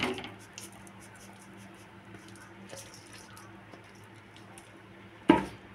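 Gram flour sliding from a steel bowl into ghee in a steel kadhai: a soft, faint rustle under a low hum, then a single sharp knock about five seconds in.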